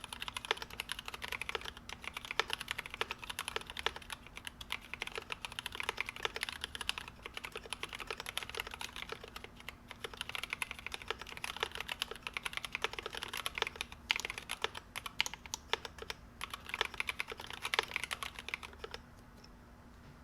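Continuous fast typing on a GMMK Pro mechanical keyboard with stock NovelKeys Cream linear switches on an aluminum plate; the keystrokes stop near the end.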